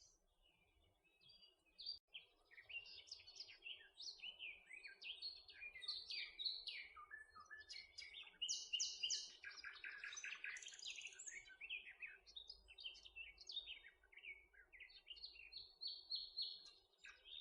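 Small birds chirping and calling, with many short, high chirps and trills overlapping. They start about two seconds in and carry on, fairly faint.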